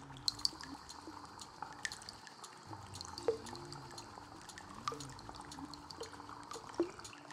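Dripping, trickling water in an ambient soundscape: sharp drips fall at irregular moments over a low, softly swelling musical tone that repeats about every second and a half.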